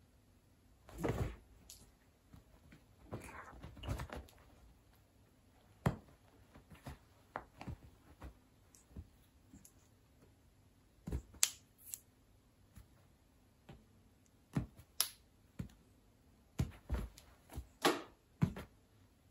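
Scattered sharp taps and soft thumps with bursts of rustling as a Bengal cat bats at a wand (fishing-rod) toy on a bed's mattress and covers.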